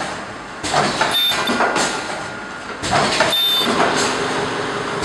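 HX-006 semi-automatic ultrasonic tube filling and sealing machine running through its cycle. Roughly every two seconds there is a sudden rush of mechanical noise with a brief high-pitched tone, and a lower running noise between cycles.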